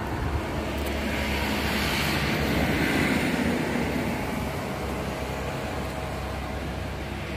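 A road vehicle passing close by: engine and tyre noise that swells to a peak about three seconds in, then slowly fades.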